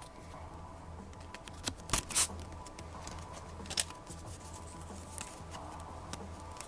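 Light handling noises: a few sharp clicks and rustles, the loudest pair about two seconds in, over a low steady hum.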